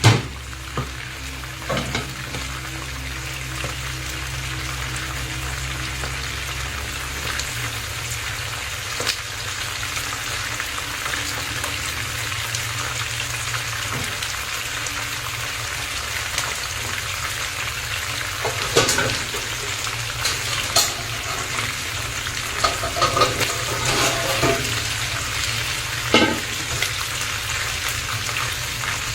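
Rat meat sizzling steadily as it fries in a pan, being stirred, with a few short sharp knocks, the clearest about two-thirds of the way through. A low hum under the frying stops about a quarter of the way in.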